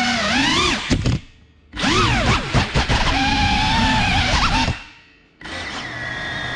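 Small FPV drone's electric motors and propellers whining, the pitch rising and falling with the throttle. The motors drop out to near quiet twice, about a second in and again near the five-second mark, then spool back up, ending on a steadier, lower tone.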